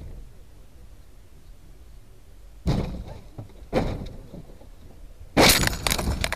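A low rumble, then two sudden crashing impacts about a second apart, and a louder, longer crash of breaking and shattering noise near the end: a vehicle collision.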